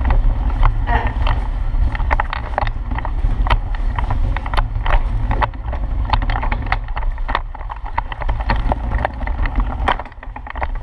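A child's tricycle rolling over a hard indoor floor: a steady low rumble with many quick clicks and rattles, easing off near the end.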